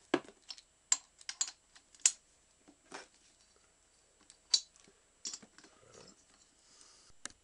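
Scattered sharp metallic clicks and taps, about ten at irregular intervals, as the cylinder-head nuts of a Peugeot 103 two-stroke moped engine are undone with an 11 mm socket and the nuts and washers are handled.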